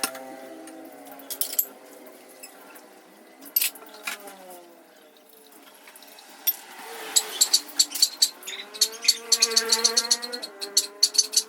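Kitchen utensils and cookware clattering in a run of quick metallic clicks and knocks, busiest in the second half, with faint voices in the background.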